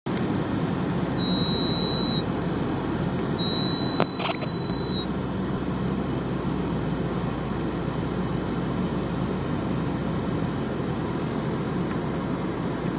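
High-pitched whistle from behind the glove compartment of a 1999 Mercedes SLK230, from the black valve with green vacuum lines that the owner traced the tone to. It sounds twice, about a second and then about a second and a half, with a sharp click during the second. Under it runs the car's steady road and engine noise. This whistle comes on when the car decelerates.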